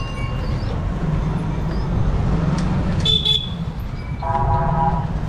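Street traffic heard from a moving cycle rickshaw: a steady low rumble runs under everything, a brief high ringing sounds about three seconds in, and a vehicle horn sounds for under a second near the end.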